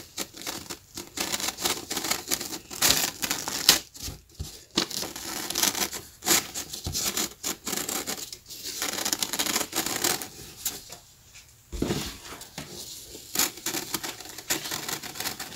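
Sheets of paper rustling and scraping in quick, irregular bursts as coloured paper strips are pulled up through a slit in a paper sheet.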